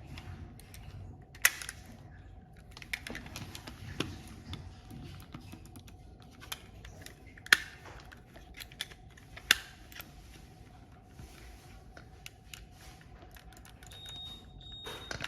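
Irregular sharp plastic clicks and taps from an Akko LW325 computer mouse being closed up and tested for its double-click fault, with a few much louder clicks among them.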